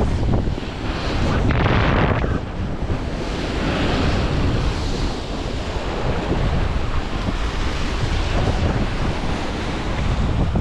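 Wind buffeting the camera's microphone in a steady low rumble, with sea waves washing in the background; the hiss swells around two and four seconds in.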